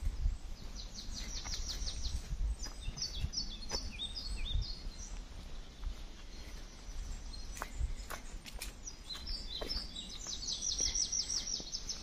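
Woodland songbirds singing: a fast high trill near the start, a run of falling notes a few seconds in, and another fast high trill near the end, over a low rumble with scattered soft clicks.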